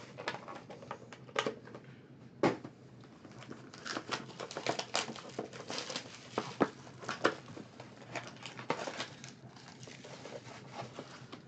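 Trading-card boxes and packaging being handled: crinkling and rustling with many scattered small clicks, and one sharp knock about two and a half seconds in.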